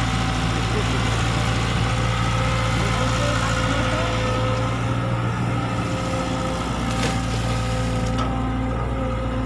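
E120B hydraulic excavator's diesel engine running at a steady speed, with a brief knock about seven seconds in.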